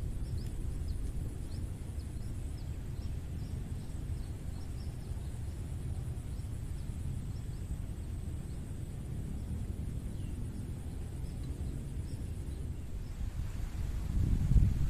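Wind rumbling on the microphone outdoors, with faint high chirps in the background; a stronger gust near the end.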